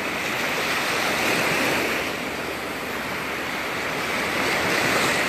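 Gulf of Mexico surf washing onto the sand beach: a steady rushing that swells and eases gently.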